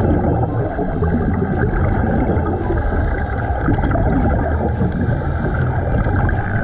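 Underwater sound as picked up by a camera below the surface: a steady muffled rumble, with scuba divers' exhaled regulator bubbles gurgling in recurring bursts about every two seconds.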